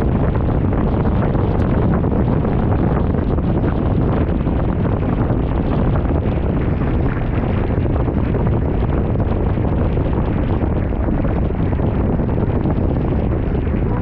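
Wind buffeting a GoPro's microphone aboard a Hobie 16 catamaran under sail in strong wind, a loud steady rumble.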